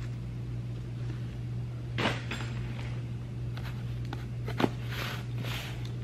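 Handling noises of unpacking: rustling, a sharp click a little past halfway, then a knife scraping through the packing tape on a small cardboard box. A steady low hum runs underneath.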